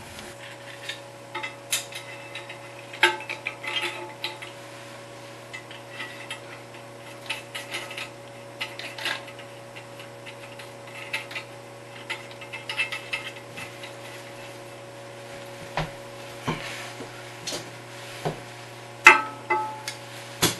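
Scattered clicks, clinks and knocks of hands working at a toilet tank, with hardware and fittings bumping against the porcelain and the plastic fill valve, the loudest knock near the end. A steady low hum runs underneath.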